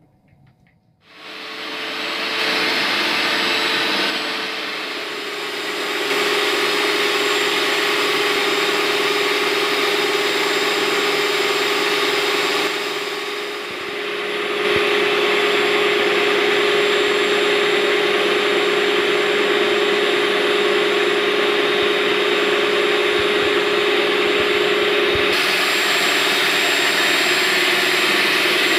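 Steady whirring of a small electric motor with a constant hum, starting about a second in and dipping briefly twice.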